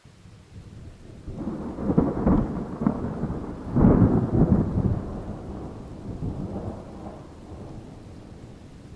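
Thunder rumbling over falling rain: the sound swells in from quiet, peaks in two loud rolls about two and four seconds in, then rumbles away while the rain hiss goes on.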